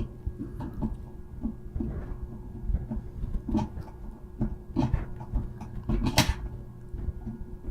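Irregular small clicks and knocks of hands and a tool working at plastic parts and zip ties inside a 3D printer, with one sharper click about six seconds in.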